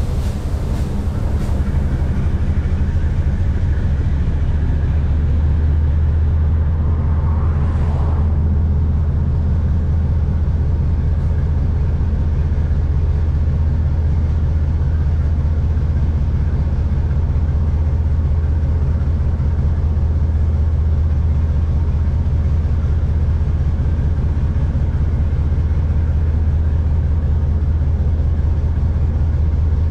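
Diesel locomotive engine running steadily under way, a constant low drone, with a brief higher sound about eight seconds in.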